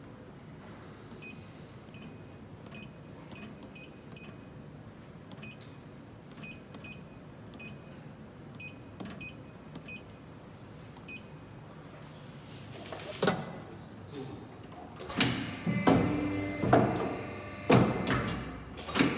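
Touchscreen control panel of a hydraulic paper guillotine beeping as keys are tapped: a string of short, irregularly spaced beeps while cutting sizes are entered. About thirteen seconds in, louder background music with drums starts.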